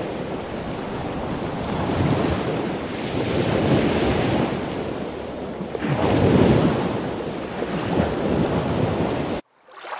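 Rushing, surf-like water noise that swells and eases every two seconds or so, then cuts off suddenly near the end.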